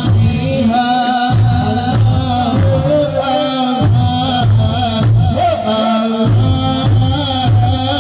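Music with singing in a folk or devotional style over a steady drum beat.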